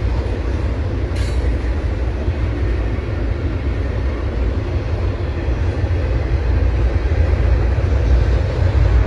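Train passing with a steady low rumble, growing a little louder toward the end, with one sharp click about a second in.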